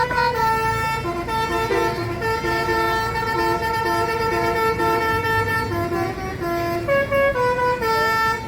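Telolet bus horn: a multi-trumpet bus air horn playing a melody in held notes that step from pitch to pitch, several sounding together, over a low rumble of the bus engine.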